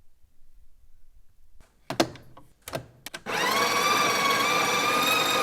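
A few sharp clicks, then, a little over three seconds in, a small electric motor of a household appliance starts and runs with a loud, steady whine.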